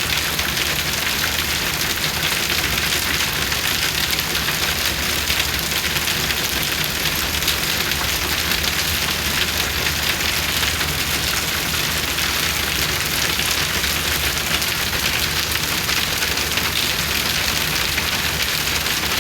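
Heavy rain falling steadily and densely on hard surfaces, a constant hiss of drops.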